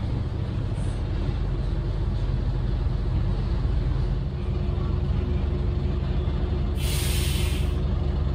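Cabin sound of a Renault PR100.3 bus's 9.8-litre six-cylinder turbodiesel running steadily. About seven seconds in, a burst of compressed-air hiss from the bus's pneumatic system lasts about a second.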